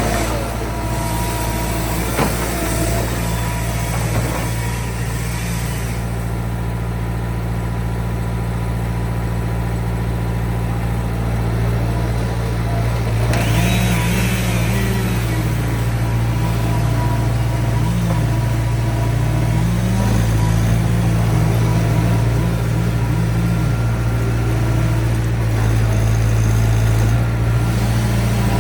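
Engine running steadily throughout, its speed rising and falling a little again and again.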